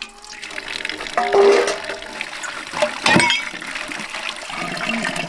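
Water running from an outdoor tap into a metal pot, splashing over mustard greens being rinsed by hand. Two short, louder pitched sounds stand out, about one and a half and three seconds in.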